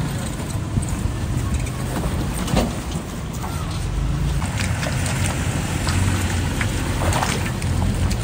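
Toyota 4x4's engine running steadily at low revs on a rocky off-road trail, with scattered clicks and knocks over the rumble.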